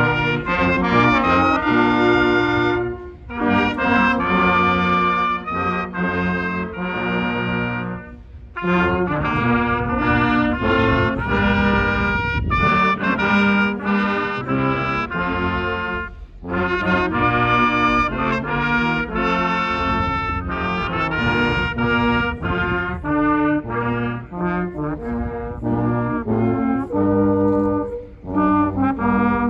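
Brass ensemble playing a patriotic song in sustained, full chords, with short breaks between phrases about 3, 8, 16 and 28 seconds in.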